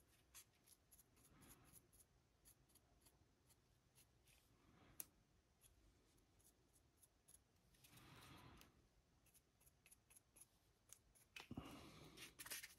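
Faint scratching of a stiff dry brush's bristles scrubbed over a small painted miniature, with scattered light ticks and a few short scratchy strokes, the strongest near the end.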